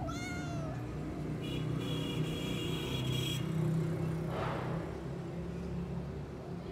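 A steady low mechanical rumble runs throughout. A cat gives a short meow right at the start, and a high steady whine sounds for about two seconds in the middle.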